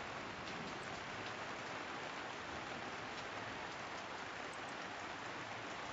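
Steady typhoon rain falling, an even hiss with a few faint drip ticks through it.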